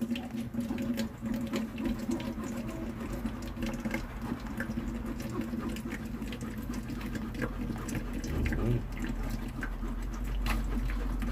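Frothy blended juice being stirred and pressed through a mesh strainer with a metal spoon: liquid trickles and splashes into the jug below, with many small irregular ticks of the spoon against the strainer. A steady low hum runs underneath.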